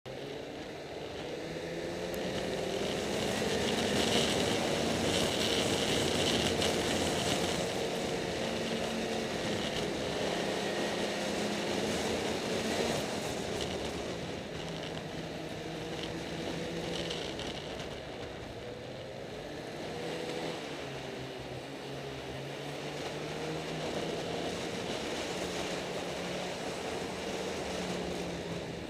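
Snowmobile engine running under way along a snow trail, its pitch rising and falling with the throttle over a steady hiss. It is loudest for several seconds early in the ride, then runs a little softer.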